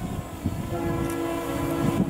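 Distant diesel locomotive air horn sounding a steady multi-note chord, starting about a second in and held, over a low rumble.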